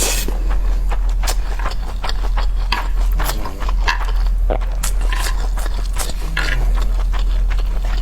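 A person eating close to the microphone: irregular chewing and crunching with small clicks and scrapes, over a steady low hum.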